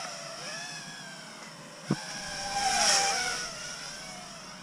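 FPV racing quadcopter's brushless motors and propellers whining, the pitch sliding up and down with the throttle and swelling loudest about three seconds in. A single sharp click comes just before two seconds.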